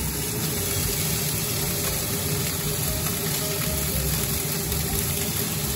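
Crumbled meatballs sizzling steadily as they fry in oil in a nonstick frying pan, pushed about with a metal spoon, over a low steady hum.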